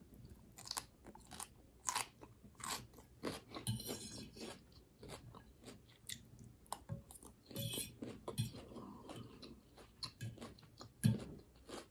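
Chewing mouthfuls of raw garden salad: irregular crisp crunches, with two longer crackling bites, about four and about seven and a half seconds in.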